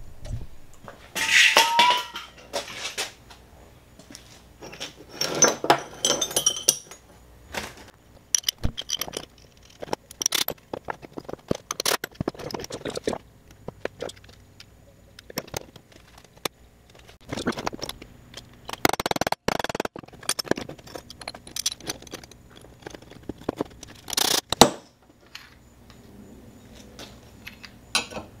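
Cut steel engine-mount brackets and bushing sleeves being handled and fitted together on a workbench: irregular clinks, clanks and scrapes of metal on metal.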